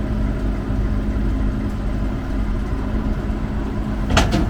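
Harvest machinery engine running at a steady hum, with a quick cluster of sharp clicks or knocks about four seconds in.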